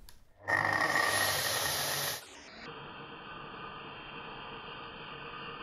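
Steady rushing hiss of a vacuum running, loud for about two seconds, then dropping to a quieter, duller steady hiss.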